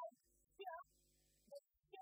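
Faint, garbled speech from a woman's voice, broken into short warbling fragments near the noise floor.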